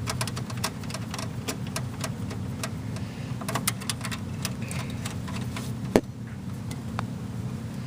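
Irregular small clicks and taps of cable plugs being handled and pushed into the ports at the back of a desktop computer, with one sharper click about six seconds in, over a steady low hum.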